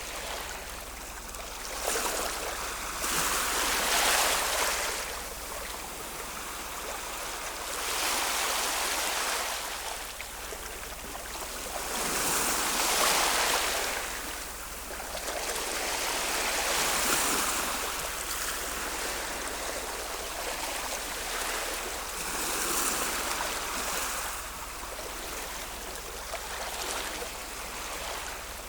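Ocean waves breaking and washing in, a hiss of surf that swells and falls back about every four to five seconds.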